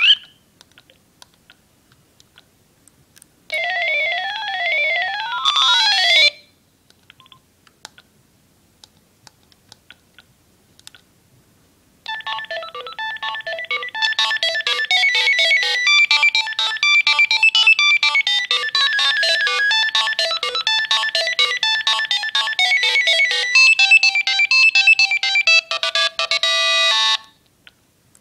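Philips Fisio 625 mobile phone playing its built-in ringtones through its small speaker. About three seconds in, a short tone sweeps up and down in a zigzag. After a pause with a few faint clicks, a melodic ringtone of short quick notes plays from about 12 s until shortly before the end.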